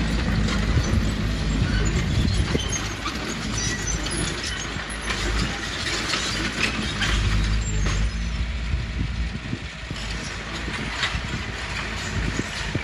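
Heavy diesel earthmoving machinery running steadily under load, with scattered knocks and clatter over the engine.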